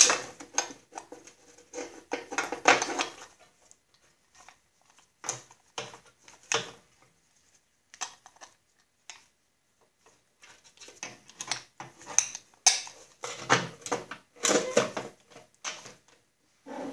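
Irregular clinks, clicks and rattles of metal parts handled by hand: the drive disc, bushing, idler and washer of a Snapper walk-behind mower's drive being worked into place on the deck bracket with the belt. The sounds come in clusters with short quiet gaps between.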